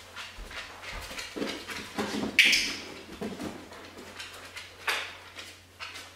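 Black Labrador's paws and claws clicking and scrabbling on a hardwood floor as it runs for a toy and back, with several knocks, the sharpest about two and a half seconds in.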